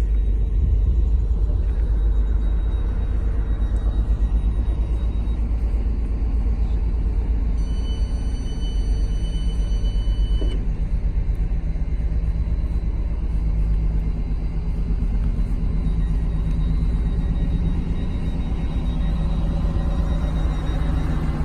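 Steady low rumble of a vehicle's engine heard from inside. A high, even tone sounds for about three seconds from roughly 8 s in.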